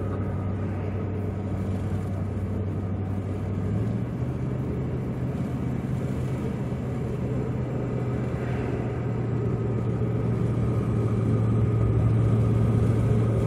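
Chevrolet Silverado pickup driving at town speed, heard inside the cab: a steady low engine hum over road noise. The engine note steps up slightly about four seconds in and grows a little louder near the end.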